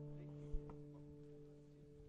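A single sustained guitar note ringing out and slowly fading, with one faint knock about half a second in.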